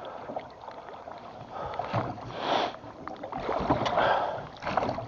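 Water splashing and sloshing around a small boat, coming in uneven swells a second or so apart.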